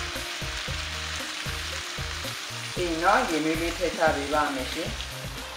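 Split chickpeas (chana dal) sizzling as they fry in oil in a nonstick wok, stirred and scraped with a silicone spatula. Background music runs underneath, with a louder melodic line coming in about halfway.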